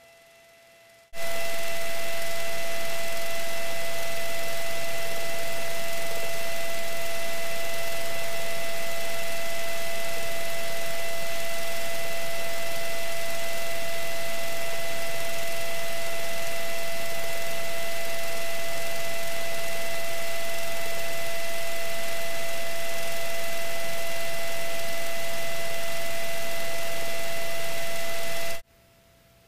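Loud, steady radio static hiss on the aircraft's headset audio feed, with a thin electrical whine running under it. It switches on abruptly about a second in and cuts off sharply shortly before the end.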